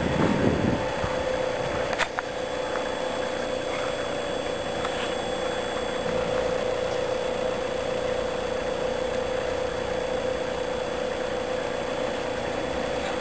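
Level crossing warning signal sounding as one steady, unbroken tone with the barriers down, warning of an approaching train. A single sharp click comes about two seconds in.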